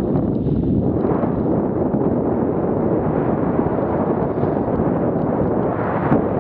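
Wind buffeting the microphone of a skier's camera during a downhill run on groomed snow: a steady heavy rumble, with a short knock near the end.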